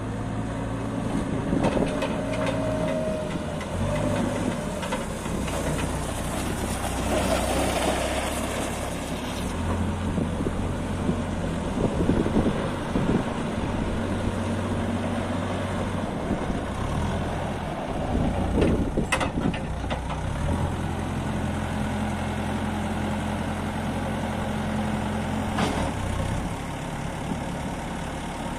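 Diesel engine of a Terex TLB890PS backhoe loader running, its pitch stepping up and down several times as the engine speed changes. Two sharp knocks, about two-thirds of the way through and near the end.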